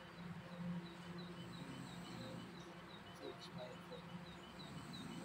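Faint outdoor site ambience: a steady low hum with a small, high chirp repeating about three times a second.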